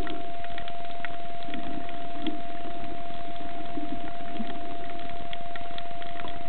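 Underwater ambience picked up by a camera below the sea surface: a steady hiss with a constant high whine, scattered sharp clicks, and muffled low sounds that come and go.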